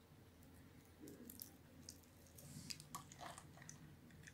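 Knife blade cutting into a scored bar of dry white soap, small cubes breaking off with faint, crisp crunches and crackles that are thickest about two and a half to three seconds in.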